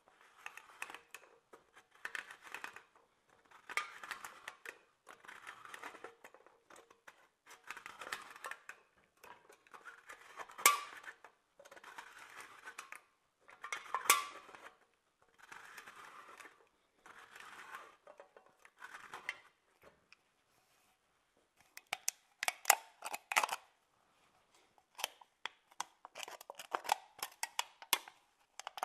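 Thin aluminium drink can being scored by a utility knife blade as the can is turned against it, in a series of scratchy strokes about a second long, with a couple of sharper clicks. Over the last several seconds comes a rapid run of sharp crackling clicks as the thin can is worked apart by hand.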